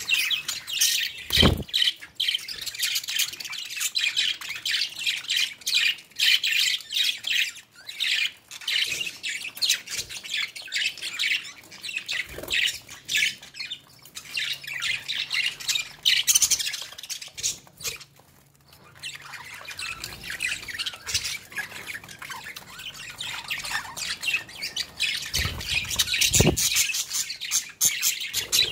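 A flock of budgerigars chattering and squawking without pause, with a short lull about two-thirds of the way through.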